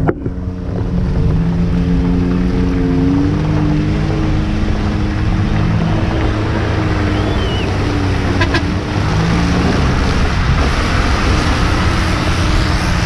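Off-road vehicle engine revving, its pitch rising and falling, with a few sharp clicks about eight seconds in.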